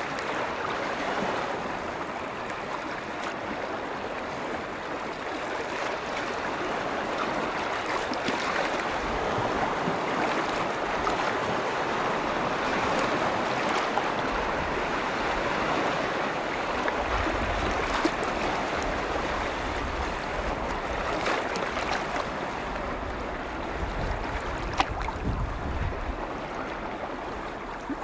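Waves on Lake Vänern washing steadily, a continuous rush of moving water with a few small sharp splashes. A low rumble swells in now and then in the second half.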